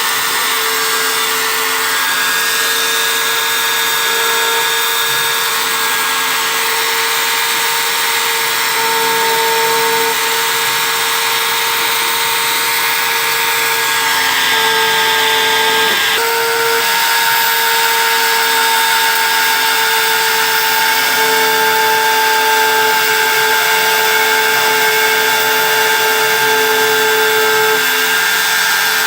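CNC engraving machine running steadily as it works, a motor whine with steady tones that shift slightly in pitch and change abruptly about halfway through.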